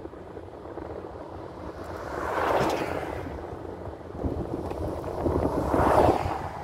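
Steady road and wind noise from a car driving slowly. Two passing whooshes swell and fade, one about two and a half seconds in and a louder one about six seconds in as an oncoming Dodge Durango SUV goes by.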